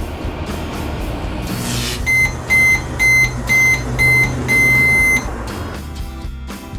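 Toy microwave running with a steady low hum, then beeping: five short high beeps about half a second apart followed by one longer beep, after which the hum stops.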